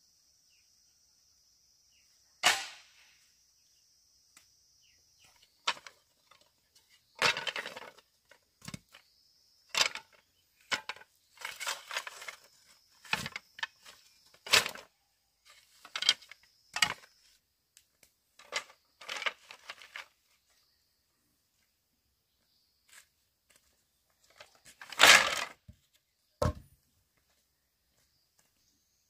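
Irregular sharp cracks and knocks of bamboo being worked with hand tools, some single and some in quick clusters, the loudest near the end. A steady high-pitched insect drone sounds behind them, plainest at the start.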